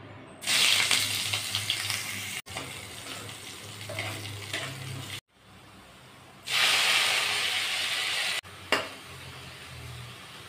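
Oil sizzling in a kadai in a few short cuts: a loud hiss from hot oil with cumin seeds and a dried red chilli, then a second loud burst as shredded cabbage is tipped in and stirred with a spatula. A sharp knock comes shortly before the end.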